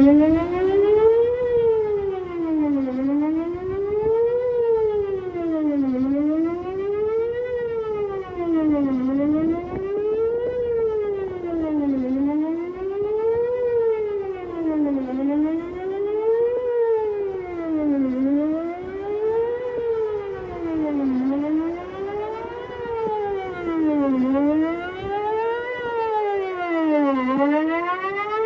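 Whelen WPS-4008 electronic outdoor warning siren starting up suddenly and sounding its Best Possible Protection tone for a monthly test. The pitch sweeps up and down continuously, about one rise and fall every three seconds.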